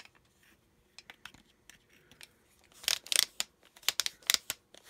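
Plastic clicks and scrapes of a Hyper Tough 4V cordless screwdriver's setting collar being wrenched with pliers because it is stuck on the drill position; faint at first, with louder bunches of clicks about three and four seconds in.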